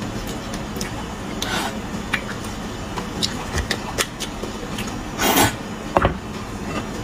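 Close-up eating of bone marrow: soft chewing and mouth clicks with a few sucking slurps, the longest a bit past five seconds in, and light clicks of a metal spoon against the bone.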